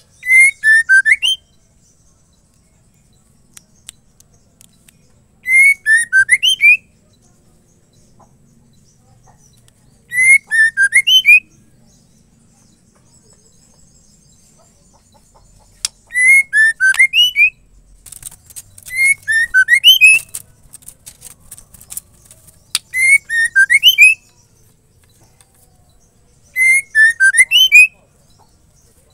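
Female white-rumped shama calling: a short phrase of sliding whistled notes over a rapid high chatter, repeated seven times at intervals of about four to five seconds. This is the female's call to males. A brief run of dry clicks comes a little past halfway.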